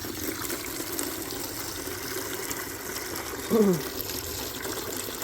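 Water running steadily into a container as an animal waterer is filled. About three and a half seconds in, a short vocal sound falls in pitch.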